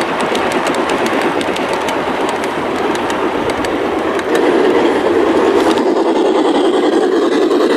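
Garden-railway model train running on outdoor track: coaches rolling along with rapid clicking from the wheels. About four seconds in, the sound turns louder and steadier as a running hum without the clicks.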